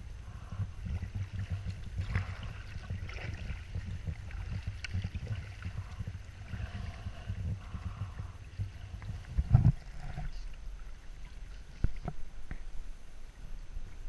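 Water slapping and washing against the hull of a paddled sit-on-top kayak, with a low rumble that drops away about ten seconds in. A sharp knock comes about nine and a half seconds in and a smaller one near twelve seconds.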